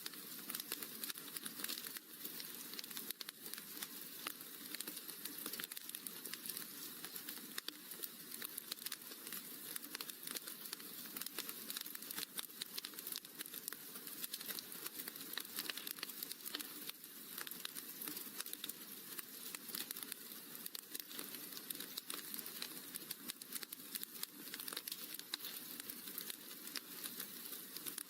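Wood fire crackling in a fireplace: a steady, dense stream of small pops and snaps.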